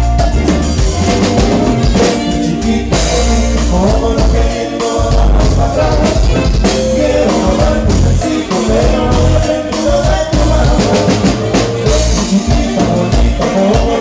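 A live band plays a dance song: a steady drum-kit beat with strong bass, instruments and a singing voice.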